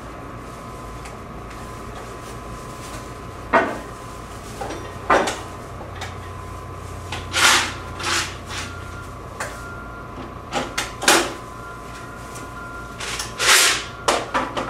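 Hands working on a bulk candy vending machine: about half a dozen separate clacks and clatters of its parts being handled and set in place, over a steady faint high hum.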